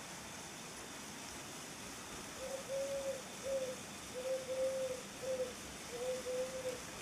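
A dove cooing: three two-part coos, each a longer note followed by a short one, starting about two seconds in.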